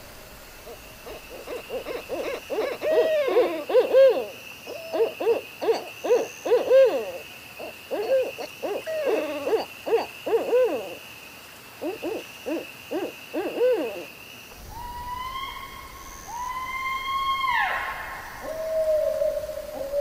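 An owl hooting in a rapid series of short calls, in quick clusters. About two-thirds of the way in, the calls change to a few longer, higher calls that fall away at the end, followed by a lower hoot near the end.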